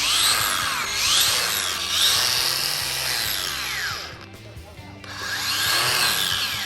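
Makita 40Vmax cordless angle grinder working, its whine repeatedly sweeping up and down in pitch, over background music; it drops off briefly about four seconds in.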